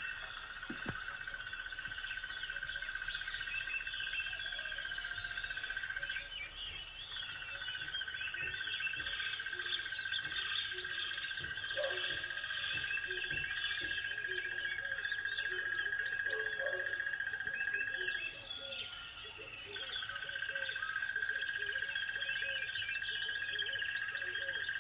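Wildlife chorus: many short bird chirps over a steady, fast high trill that drops out briefly twice.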